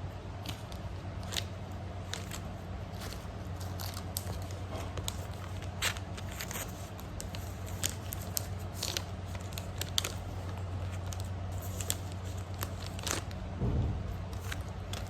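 Light, scattered crackles and clicks of something being handled, over a steady low hum.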